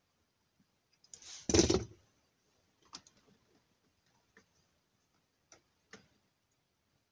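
Hands handling a car-radio wiring harness: one loud rustling handling noise lasting under a second, about a second and a half in, then a few light separate clicks as the wires and plastic connectors are pushed into the dashboard opening.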